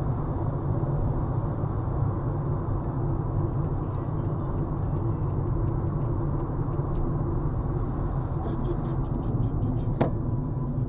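Steady road and engine rumble of a car driving on a highway, heard inside the cabin. A single sharp click about ten seconds in.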